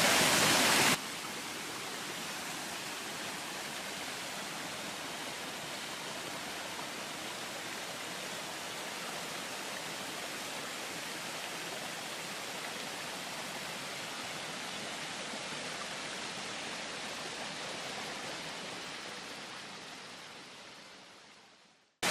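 Steady rush of a waterfall's running water among ice. It is louder for the first second, drops suddenly to a quieter, even rush, and fades out near the end.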